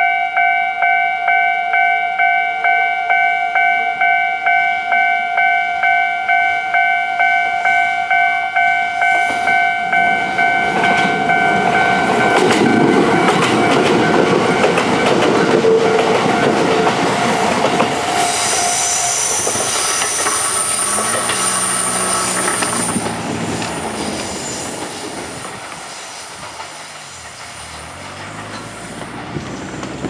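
Level-crossing alarm bell ringing with about two strokes a second while a Kintetsu 1000 series electric train runs over the crossing. The wheel and running noise builds from about a third of the way in. The alarm stops a little past the middle, and the train noise, with a high whine, fades toward the end.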